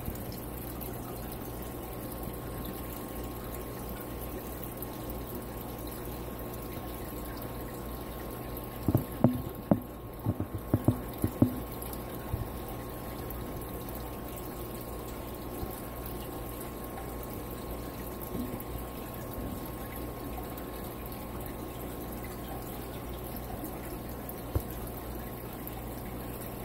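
Aquarium air stone bubbling steadily, over a steady low hum. A cluster of sharp clicks comes about nine to twelve seconds in.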